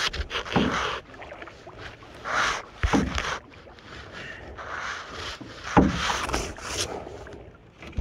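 Canoe paddle strokes: a swish of water with each stroke, about every two to three seconds, each with a short dull knock, the loudest about six seconds in.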